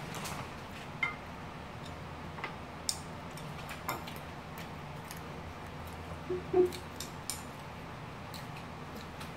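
Chopsticks and a spoon clicking and scraping against ceramic plates during eating, a few scattered light ticks over a steady low hum. A brief squeak about two-thirds of the way through.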